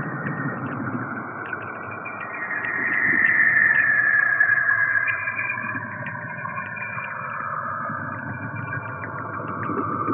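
Saturn's radio emissions converted into sound: an eerie, whooshing electronic noise with a high whistling tone that swells and slowly falls in pitch about three to five seconds in, over a bed of faint crackly ticks.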